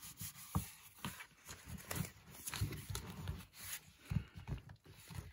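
Soft, irregular rustles and light taps of hands handling and pressing glued paper pages into the crease of a thick altered book.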